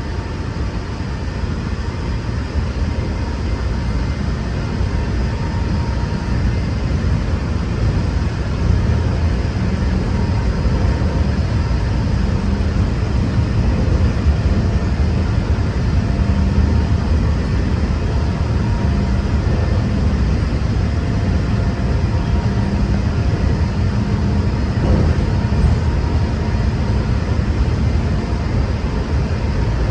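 Walt Disney World monorail in motion, heard from inside the passenger cabin: a steady low rumble with faint steady whining tones from the running gear. It gets slightly louder about eight seconds in.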